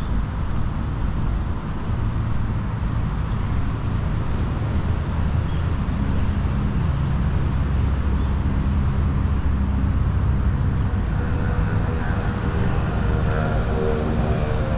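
Steady rumble of road traffic, with a vehicle's engine hum coming through more strongly in the last few seconds.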